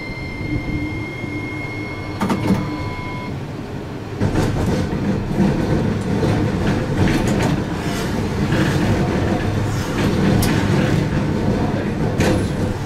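Toyohashi Railroad T1000 low-floor tram running on street track, heard from the cab: a steady high whine for the first three seconds, then a louder rolling rumble from about four seconds in, with repeated sharp clicks and knocks of the wheels over rail joints and crossings.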